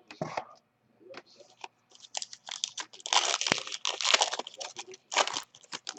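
A 2017 Donruss baseball card pack's wrapper being torn open and crinkled: a run of rustling, crackling bursts, loudest in the middle.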